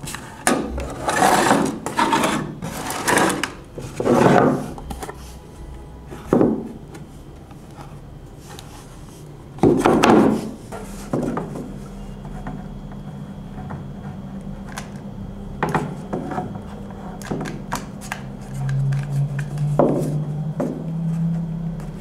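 Handling noise: electronic boards, wires and a hot glue gun being moved, rubbed and set down on a wooden workbench, with irregular knocks and scrapes, loudest in the first half. A low steady hum sets in about halfway through.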